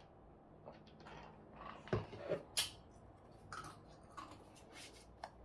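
Tarot cards being handled and shuffled in the hands, giving several short crisp flicks and rustles. A plastic drinking cup is set down on the wooden tabletop about two seconds in with a solid knock, the loudest sound.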